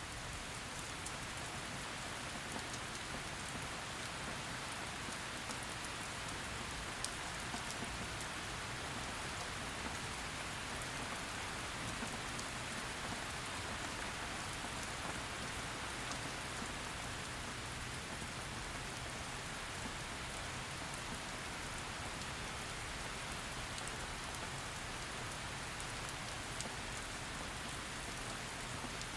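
Heavy rain falling steadily, an even hiss with scattered individual drops ticking on a surface.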